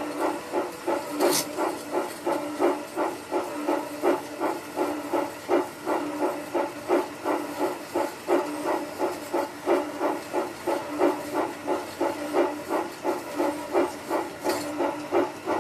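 G scale steam locomotive's sound unit chuffing in an even rhythm, about three chuffs a second, while the locomotive runs in place on track rollers. Two sharp clicks cut through, about a second in and near the end.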